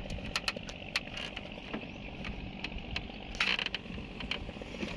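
Handling and movement noise in a composite boat hull: scattered light clicks and knocks over a low steady rumble, with a brief louder rustle about three and a half seconds in.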